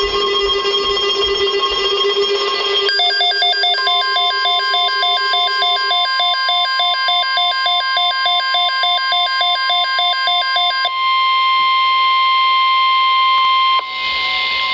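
Electronic weather-alert tones. A fast, evenly pulsing alarm beep runs for about eight seconds. Then a steady single-pitch alert tone, the NOAA Weather Radio 1050 Hz warning tone, holds for about three seconds, and radio hiss comes up near the end.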